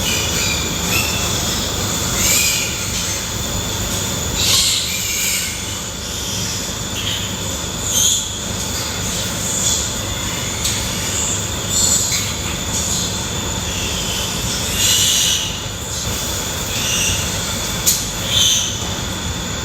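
Pigs squealing in short high-pitched cries every second or two, over a steady whooshing noise.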